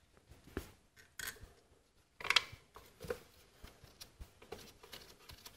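Faint, scattered light clicks and taps of small metal 8 mm bolts being handled and set into an ignition coil's mounting holes, with the loudest cluster of clicks a little past two seconds in.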